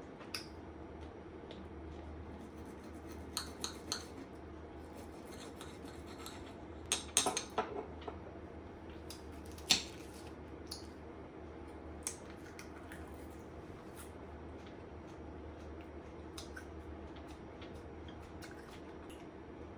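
Knife and fork clinking and scraping on a ceramic plate while cutting steak and eating salad: scattered clicks, a quick cluster of them about seven seconds in and the sharpest clink near ten seconds, over a low steady hum.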